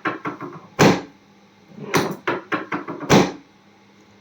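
Chiropractic adjustment thrusts: two loud thumps about two seconds apart, each preceded by a quick run of smaller knocks and clicks.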